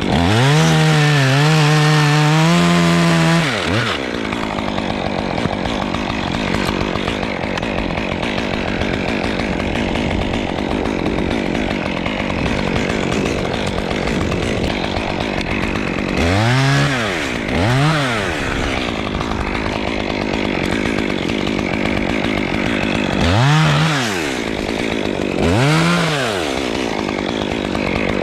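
Chainsaw held at high revs for about three seconds, then running steadily for a long stretch. Near the middle it is revved up and back down in two quick blips, and twice more near the end.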